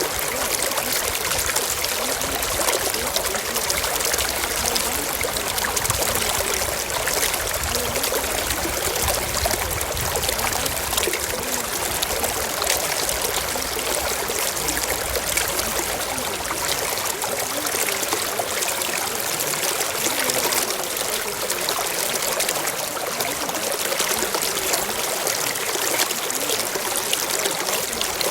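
Steady running water, a stream-like flow or trickle.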